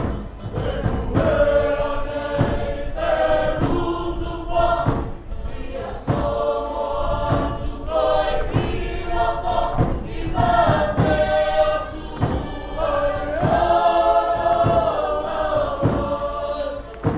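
Cook Islands kapa rima (action song) sung in chorus by a group of voices, with a steady beat under the singing.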